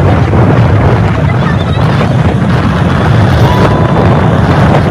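Wind buffeting the microphone on a moving two-wheeler: a loud, steady low rumble of rushing air, with the ride's road and engine noise mixed underneath.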